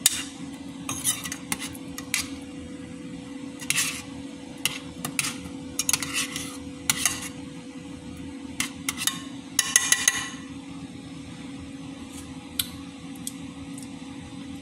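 Metal ladle knocking and scraping against a stainless steel pot while stirring thick sauce, in irregular clinks, with a brief ringing clatter about ten seconds in. A steady low hum runs underneath.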